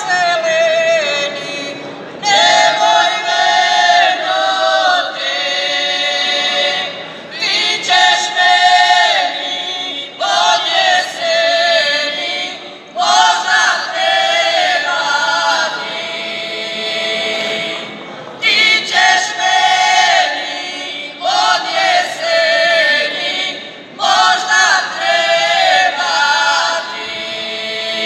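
Women's folk singing group singing a traditional Banija song unaccompanied, several voices together in short phrases with held notes and brief pauses between them.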